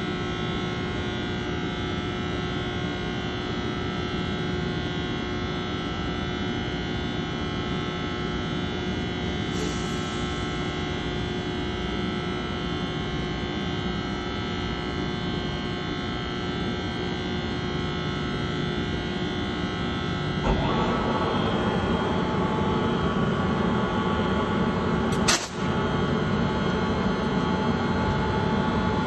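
ALP-45DP dual-mode locomotive idling, its diesel and electric cooling fans making a steady hum with several whining tones. About twenty seconds in, the sound grows louder and rougher, and a sharp click comes a few seconds later.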